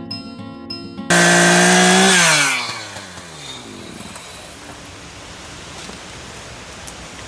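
Two-stroke Echo chainsaw held at full throttle, then released, its pitch falling quickly as it drops back toward idle. Guitar music stops just before it.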